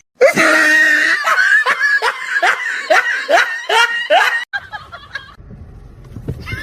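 Someone laughing in a rapid run of about ten repeated bursts, roughly two and a half a second, that stops about four and a half seconds in.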